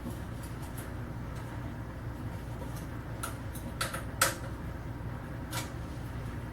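A few light clicks and knocks as the tubular arms are taken off an embroidery-machine clamp, over a steady low hum.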